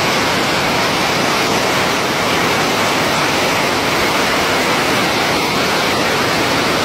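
Floodwater rushing down a street in a fast, churning torrent: a loud, steady wash of moving water with no letup.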